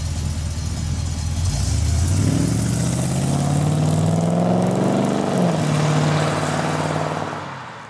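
Corvette C3 V8 engine idling, then rising in pitch about a second and a half in and holding at higher revs, with a further step up near five seconds, before fading out near the end.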